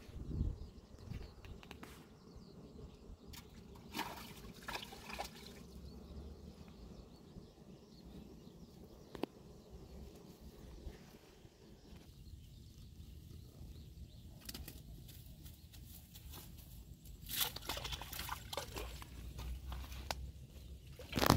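Wind rumbling on the microphone, with scattered brief rustles and clicks, the loudest cluster a little before the end.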